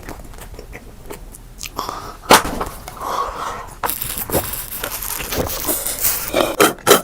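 Close-up eating sounds: irregular bites and chewing with crunchy snaps. The loudest snap comes a little over two seconds in, and there is a cluster of snaps near the end.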